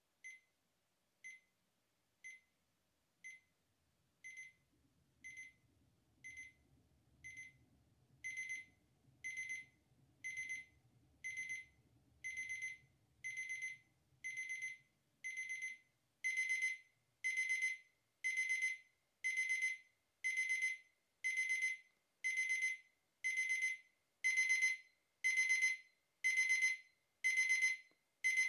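Braun BC21 digital alarm clock's alarm going off: high-pitched electronic beeps about once a second. They start as single short beeps and grow louder and longer in steps into bursts of rapid beeps, the clock's escalating alarm.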